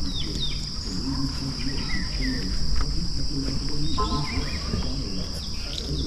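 A steady, high-pitched insect chorus runs throughout, with scattered bird chirps over it, among them a short call about four seconds in. A low rumble lies underneath.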